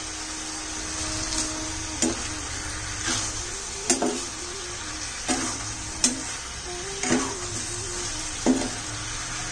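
Pork pieces frying in oil in a pan, sizzling steadily while a metal spoon stirs them, scraping and knocking against the pan about once a second.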